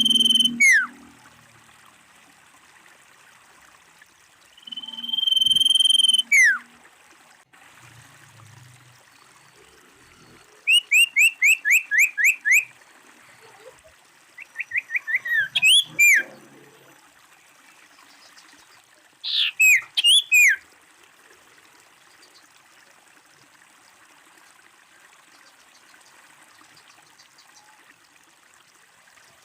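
Common iora singing in separate loud phrases. Twice a long, steady whistle breaks into a quick falling note. Later come a fast run of about eight short downslurred notes, a quicker accelerating run, and a final whistled phrase, over a faint steady background hiss.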